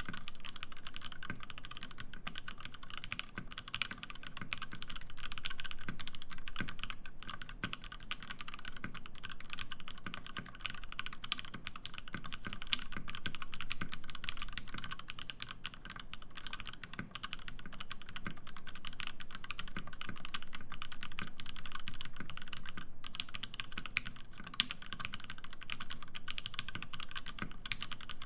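Satisfaction75 R2 mechanical keyboard with lubed Lavender switches, an FR4 plate and GMK Hennessy keycaps being typed on continuously and fast: a dense, even patter of keystrokes with small swells and lulls in pace.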